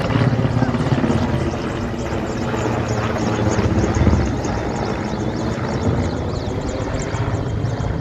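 Large helicopter with a water bucket slung beneath it flying overhead: the steady, fast chop of its rotor blades over engine noise.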